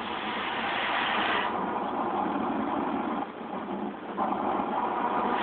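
Automatic car wash spraying water over the car, heard from inside the cabin: a steady rushing noise that thins out about a second and a half in, dips briefly, then builds again.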